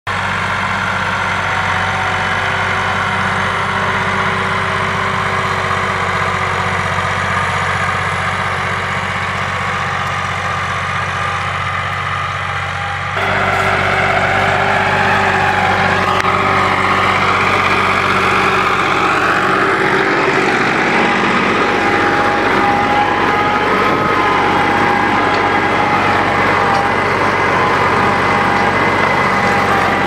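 Massey Ferguson 260 tractor's diesel engine running steadily under load while it pulls a tillage implement through the soil. About 13 seconds in the sound changes abruptly and becomes louder, with a higher whine over the engine.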